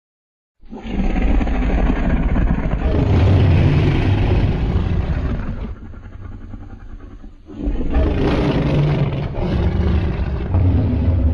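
Giant-monster roar sound effect: a deep, rough roar that starts suddenly out of silence about half a second in, drops to a quieter rumble around the middle, then a second roar begins and carries on to the end.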